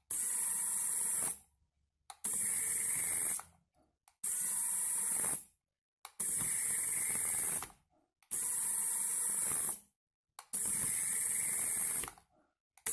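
Modified micro servo's small electric motor and plastic gears whirring as it turns a threaded rod that steers the front wheels. It runs six times, each run lasting about a second and a half with short pauses between, as the steering swings from side to side.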